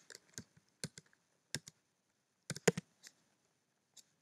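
Keystrokes on a computer keyboard, typed singly and unevenly, with a quick run of several clicks about two and a half seconds in.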